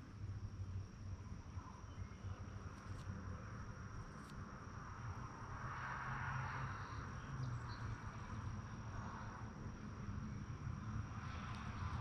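Insects trilling steadily at one high, unchanging pitch, with a soft rushing noise that swells around the middle and again near the end.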